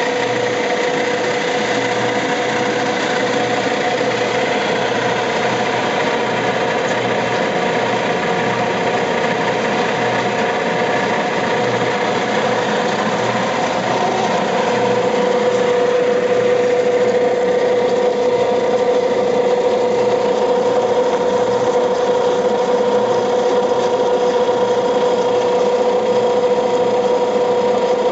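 Penagos UCBE 500 coffee pulper and demucilager running steadily under load as it pulps coffee cherries and strips off the mucilage: a steady mechanical hum over a fast, even pulsing. It gets a little louder about halfway through.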